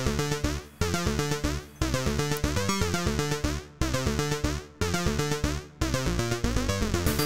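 Electronic background music: synthesizer notes over a steady beat, the sound swelling and dropping away about once a second.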